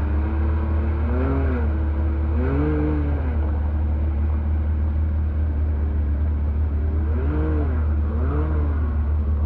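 Can-Am Maverick X3 side-by-side's turbocharged three-cylinder engine revving as it climbs a muddy hill, the throttle blipped up and down four times over a steady low rumble.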